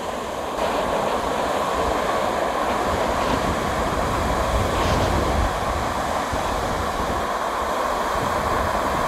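Sea surf breaking on a sandy beach, a steady rushing noise, with wind buffeting the microphone. It gets a step louder about half a second in.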